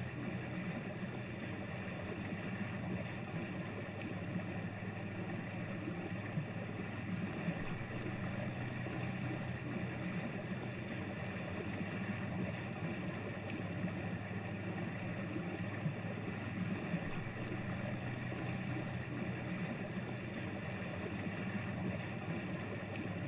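Motorboat engine running steadily at low speed, a constant low drone.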